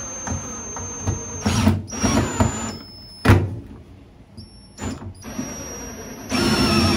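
Cordless drill with a nut driver driving a lag bolt into a wall stud, in short start-stop bursts of motor whine. There is a sharp knock about three seconds in, and a louder, lower-pitched run near the end as the bolt goes in.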